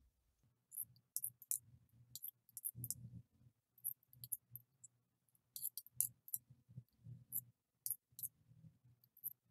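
Scissors snipping repeatedly through knit fabric, cutting thin slits side by side into a fringe: a run of faint, quick snips at irregular intervals.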